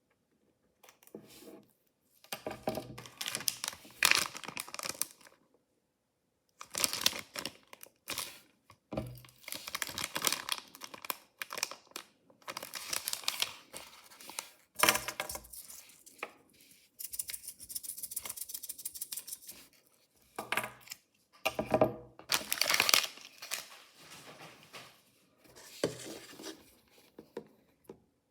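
Mystery-toy packaging being torn open and crinkled by hand, in a series of rustling, tearing bursts with short pauses between them.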